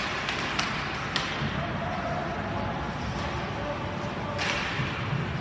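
Ice hockey play in an indoor rink: several sharp clacks of sticks and puck in the first second and a half, then a longer scraping hiss of skates on the ice about four and a half seconds in, over indistinct voices.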